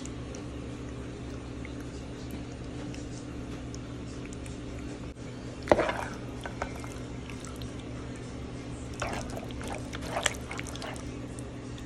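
Penne in creamy Alfredo sauce being stirred with a metal spoon in a pan: a sharp clank of metal about halfway through, then wet squelching and scraping clicks near the end, over a steady low hum.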